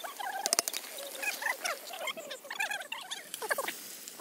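A chorus of small animals calling, many short overlapping chirp-like calls, with a single sharp click about half a second in.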